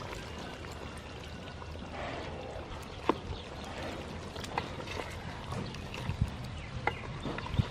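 Coconut milk pouring into a pot of chicken, then a wooden ladle stirring the curry, with several sharp knocks as it strikes the metal pot.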